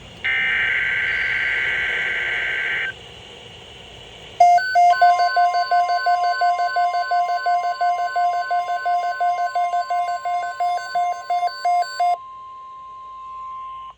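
NOAA Weather Radio alert signal for a severe thunderstorm watch. It opens with a burst of SAME digital data screech lasting a few seconds. About five seconds in, the steady 1050 Hz warning alarm tone starts. Rapid electronic beeping joins it and stops about two seconds before the tone ends.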